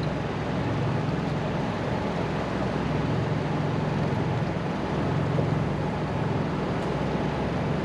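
Steady low engine-like hum with an even rushing noise beneath it, unchanging throughout.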